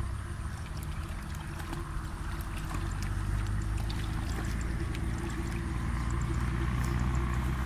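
Hands sloshing and splashing in shallow muddy water, feeling for fish, with small irregular splashes. Under it runs a low steady rumble that grows louder toward the end.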